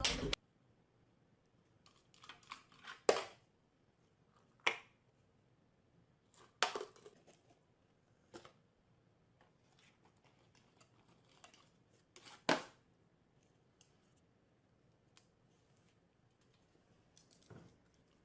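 A few scattered sharp clicks and light knocks, with faint rustling between them and quiet gaps.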